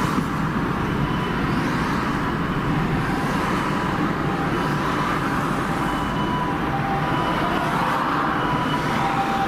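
Road traffic noise: vehicle engines and tyres on the street at a steady level. About six seconds in, the faint high-low wail of an ambulance siren starts to come in under the traffic.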